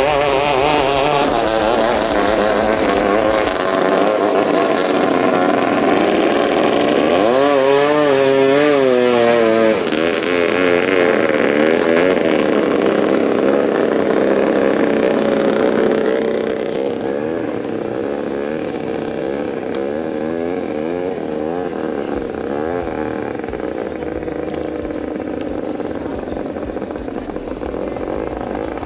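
Small long-tail racing speedboat engines running flat out, the high engine note wavering in pitch. A sharper note sweeps up and wobbles about 7 to 10 seconds in as a boat passes close. The sound gets somewhat quieter from about 16 seconds.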